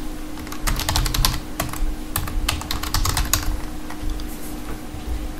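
Computer keyboard being typed on: a quick run of keystrokes over the first three seconds or so, then only a few scattered clicks, over a faint steady hum.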